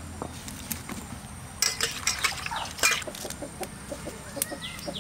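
Chickens clucking in short, repeated notes, with a few sharp clinks of a steel ladle against a metal kadai.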